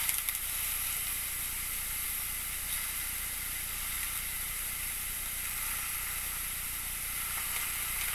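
Two marinated steaks sizzling steadily as they sear on the ribbed side of a hot cast iron griddle pan.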